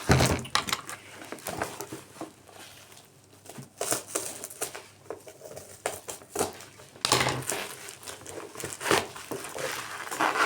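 Taped paper packaging being crinkled, pulled and torn open by hand in irregular crackling bursts.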